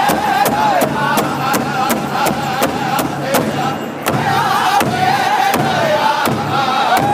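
Powwow drum group: several men beating one large drum together in a steady beat of about three strokes a second while singing a high-pitched chant.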